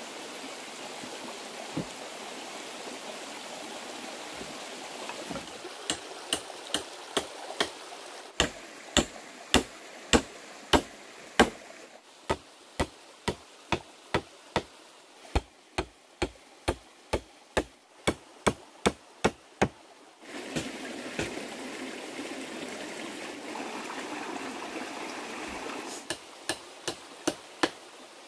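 Repeated sharp knocks of a tool striking, about two blows a second, in runs of several seconds with pauses between, over a steady rushing noise.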